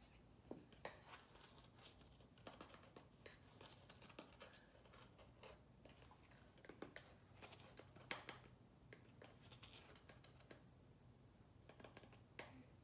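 Faint scattered clicks, scrapes and rustles from a carton of dry baby oatmeal cereal and a spoon being handled, the spoon digging into the dry cereal near the end.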